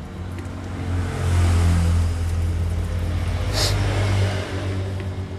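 A motor vehicle's engine running nearby, a steady low hum that swells about a second in and eases off toward the end. A short rasp a little past halfway, as electrical tape is pulled off the roll.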